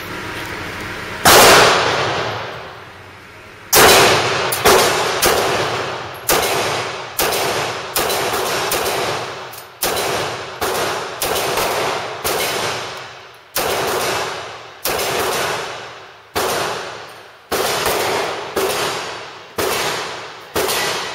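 Ruger SR9c 9mm compact pistol fired shot after shot, about twenty rounds: a single shot about a second in, then a steady string at roughly one shot a second. Each report rings off the walls of an indoor range.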